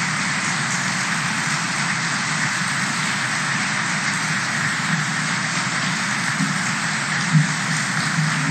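Audience applauding steadily, with a couple of short knocks near the end.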